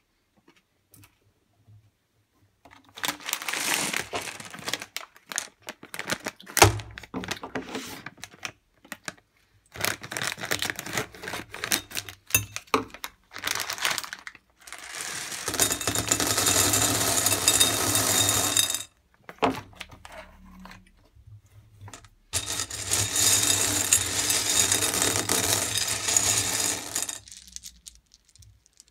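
Candy-coated chocolate pieces clicking and rattling against a glass bowl and against each other: scattered clicks as they are handled, then two long stretches of dense rattling in the second half as more are poured in.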